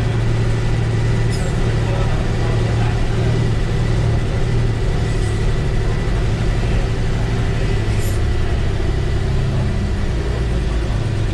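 Mercedes-Benz OF-1315 bus's front-mounted diesel engine running steadily under way, heard from inside the cab of the Marcopolo Torino body. There is a low, even hum and two brief high clicks, one about a second in and one about eight seconds in.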